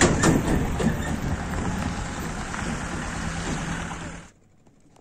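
Wind rushing over the microphone and road noise from a moving motorcycle on a rough gravel road. The noise eases a little, then cuts off suddenly a little after four seconds in.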